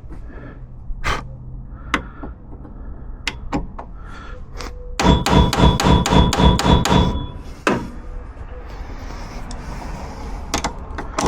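Hammer striking metal: a quick run of about a dozen blows in two seconds, about five seconds in, with a metallic ringing, plus a single strike just after. Scattered lighter knocks and clicks from tool work come before and after.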